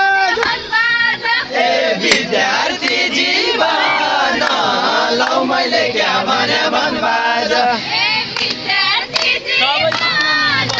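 Many voices chanting and shouting together in a dense, overlapping mass, with no single voice standing out.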